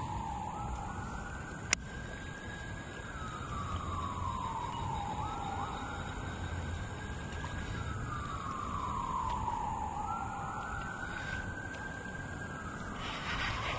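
Emergency vehicle siren wailing, its pitch rising and falling slowly about three times. A single sharp click sounds about two seconds in.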